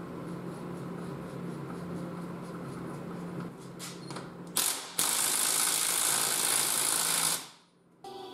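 Impact wrench run on the yoke nut of an NP231 transfer case's slip-yoke-eliminator output: a short blip, then a loud continuous run of about two and a half seconds that stops abruptly. A steady low hum is heard beforehand.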